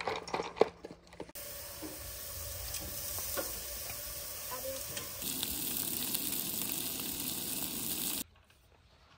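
Dogs crunching kibble from their bowls for about a second, then burger patties sizzling on a barbecue grill, and from about five seconds in a louder, fuller sizzle of asparagus frying in a pan, which cuts off suddenly near the end.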